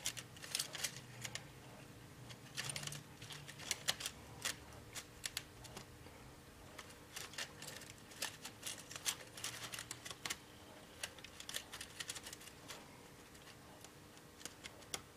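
Light, irregular metallic clicks of steel pivot wires and caliper jaws tapping together as a bundle of pivot wire is sorted and each wire is gauged, sometimes several clicks a second, over a faint steady hum.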